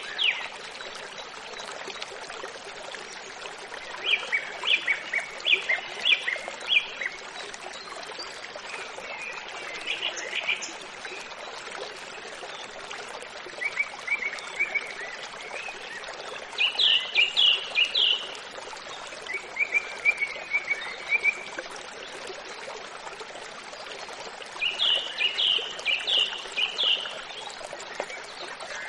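Birds chirping over a steady rush of running water, the chirps coming in quick runs of short high notes every few seconds.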